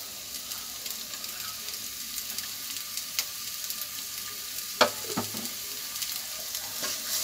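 Chopped onions sizzling in hot oil in a kadai, a steady hiss. A single sharp knock comes a little under five seconds in.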